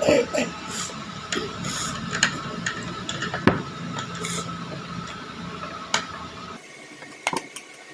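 Screwdriver and hands working the screw and plastic back cover of an electric iron: scattered clicks and taps of tool on plastic, over a faint steady hum that stops about six and a half seconds in.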